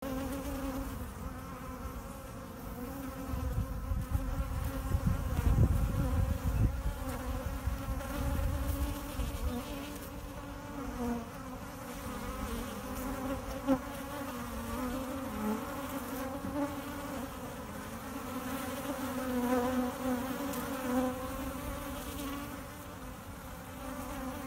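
Many honeybees buzzing steadily close up, a droning hum that wavers slightly in pitch. A low rumble swells under the buzz between about three and nine seconds in.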